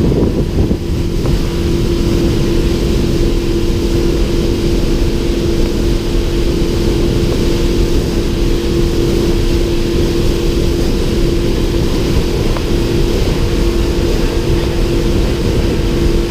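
Speedboat engine running at a steady speed, a constant droning note over a low rumble.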